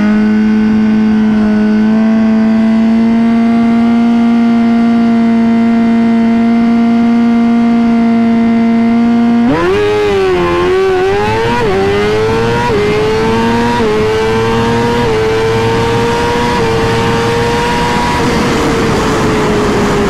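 2020 Suzuki GSX-R1000's inline-four held steady at about 7,000 rpm on the start line, then launching about nine and a half seconds in. It pulls hard through the gears, the pitch climbing and dropping back at each of about five quick upshifts into top gear on a full-throttle quarter-mile drag pass.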